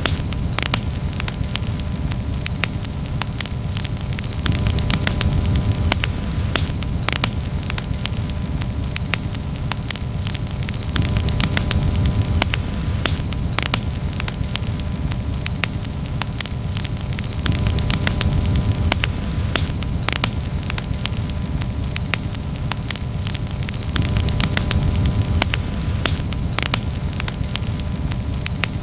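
Campfire crackling, with frequent sharp snaps and pops over a steady low rumble.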